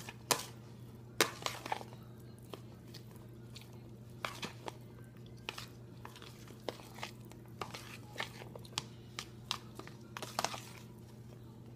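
A utensil stirring a chopped egg and hot dog filling in a plastic container, with irregular clicks and scrapes against the plastic, over a steady low hum.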